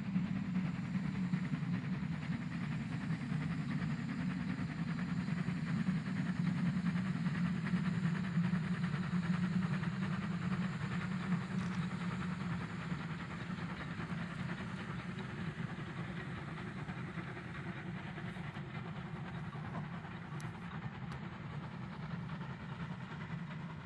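Chrzanow Ferrum 0-6-0T steam tank locomotive hauling a passenger train past at a distance: a steady rumble of the engine working and the coaches running on the rails. It grows to its loudest a few seconds in, then slowly fades as the train draws away.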